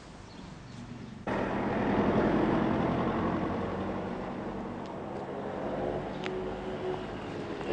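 A motor vehicle engine running, the sound cutting in abruptly about a second in, loudest shortly after and then slowly fading.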